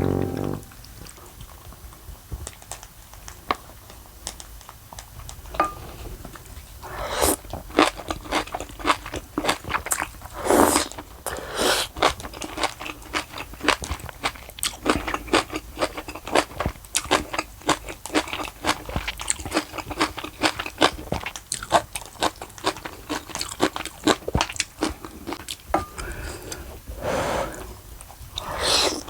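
A person eating close to the microphone: crunchy bites and chewing. It is quiet for the first few seconds, then the crunching starts about six seconds in and goes on in quick, irregular crackles, with a few louder bites.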